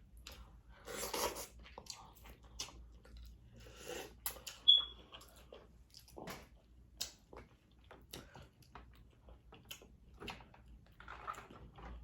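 Close-up eating sounds: wet chewing and smacking with scattered clicks and crackles from handling sauced seafood. A brief high squeak cuts in a little under five seconds in.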